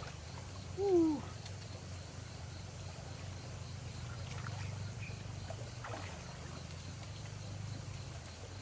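A short animal call about a second in, sliding down in pitch, over a steady low hum.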